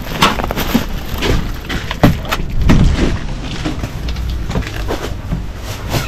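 Footsteps and irregular knocks, with wind rumbling on the microphone.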